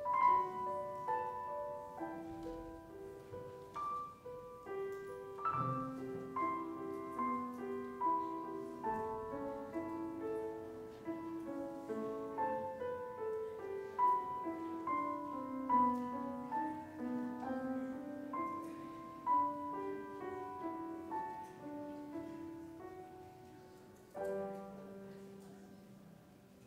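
Solo piano playing a melody with chords, each note struck and then decaying. A last chord about 24 seconds in rings on and fades away.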